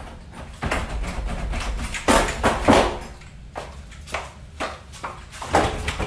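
Doorknobs grabbed and doors rattled in quick succession, with high-heeled footsteps on a wooden floor; the loudest run of rattling knocks comes about two to three seconds in.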